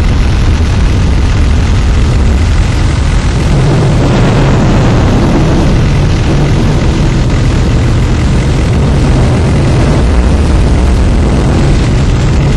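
Loud, steady roar of tornado-force wind, with a deep rumble underneath.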